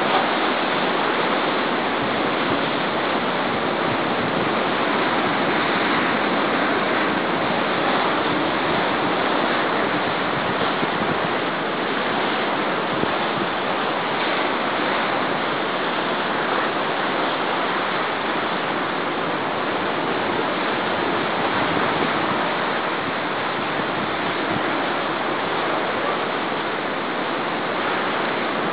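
Rough storm sea: waves breaking and churning in heavy surf, a steady rush of water with no single crash standing out.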